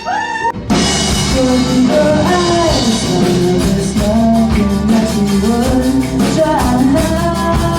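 Live rock band playing a song with a singer, drums and guitars. The full band comes in less than a second in and plays loudly, with the sung melody over a steady drum beat.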